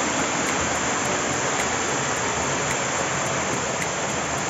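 Waterfall spilling down a rock face: a steady rush of falling water.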